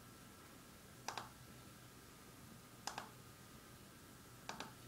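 Computer mouse button clicks: three faint quick pairs of clicks, each like a double-click, about two seconds apart, over a low steady hum.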